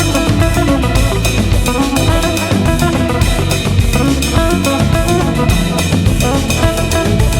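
Background music: a band track with a steady drum-kit beat, bass and guitar.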